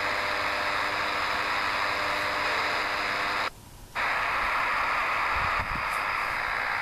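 DEGEN DE1103 shortwave receiver giving steady static hiss overlaid with a buzzing hum of stacked tones: the wideband buzz the uploader finds all over the band and wonders may be HAARP. About halfway through the audio mutes for half a second as the radio is retuned and switched to SSB, then the hiss returns with a fainter whine.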